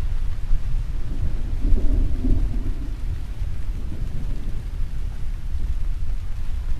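Thunderstorm: steady rain with a low rolling rumble of thunder that swells about a second in, peaks around two seconds and fades back into the rain.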